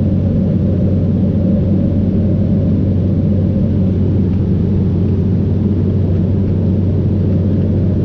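Steady cabin drone of a propeller airliner in flight: a loud, even engine and propeller hum with a deep pitched note and no change.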